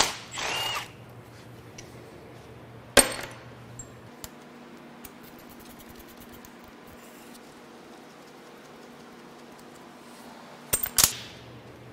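A cordless impact wrench whirs briefly on an oil-pump bolt of a Ford 300 straight six, loosening it. Then come sharp metal clinks and clanks as the bolts and the pump are handled: a loud one about three seconds in and two close together near the end.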